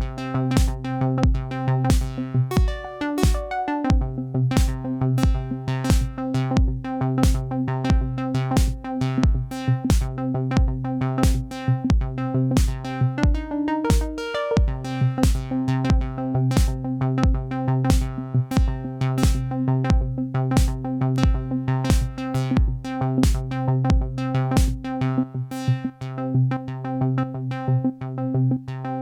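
Techno groove: a Roland TR-8 drum machine plays a steady kick and hi-hat pattern at about two beats a second under a held Behringer DeepMind 12 synth chord. Twice, a short rising synth phrase briefly takes over from the chord, and the kick drops out about 25 seconds in while the hats and synth carry on.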